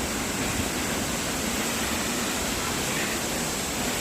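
Steady rush of a large waterfall's falling water heard close to its base, an even, unbroken noise.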